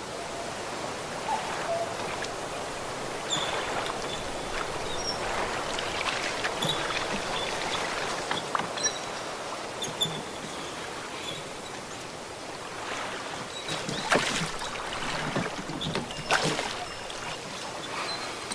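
Oars of a rowboat dipping and splashing in lake water at irregular strokes, with water lapping in between.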